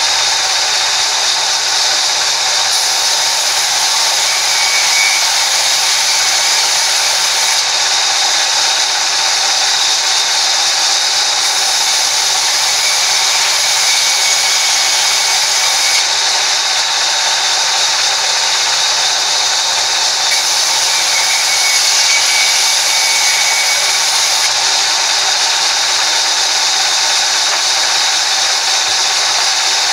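Sawmill band saw running steadily, its blade cutting lengthwise through a plank of wood as it is pushed through. The noise is loud and unbroken, without pauses.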